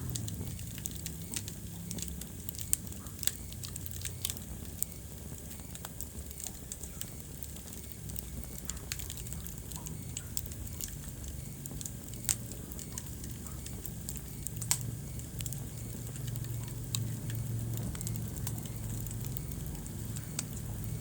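Wood fire crackling in a fireplace: a steady low rumble of burning with irregular small crackles and a few sharper pops scattered through.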